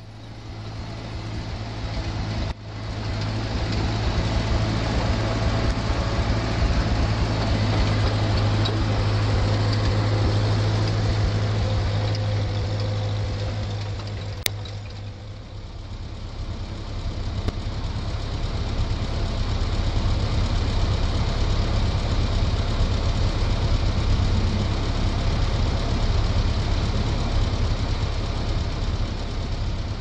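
Renault 103-54 tractor pulling a Fahr M60T trailed combine through barley, its engine and the combine running steadily with a continuous low drone. Wind buffets the microphone, and there is a brief click about halfway.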